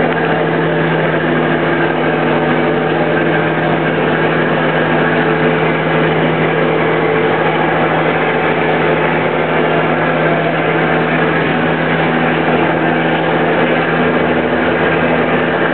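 Boat's diesel engine running steadily: a constant drone with a low, unchanging hum and no change in speed.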